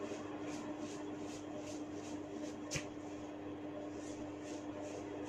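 Hair cracking: faint, regular rustling of strands being tugged, with one sharp crack about three seconds in, over a steady low hum.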